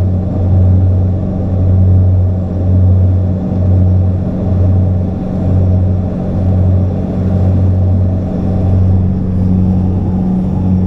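Cabin drone of a small propeller airliner: a loud, steady low hum from the engines and propellers that swells and fades about once a second.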